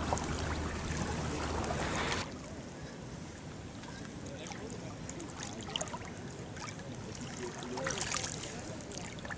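Low wind rumble on the microphone for about two seconds. Then, after a sudden drop in level, quiet lake water lapping with small splashes and drips as a carp is let back into the shallows by hand.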